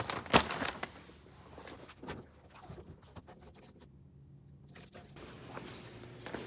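A plastic chair pulled out from a table, with a sharp knock as it moves, then a run of quick light clicks of typing on a thin low-profile keyboard.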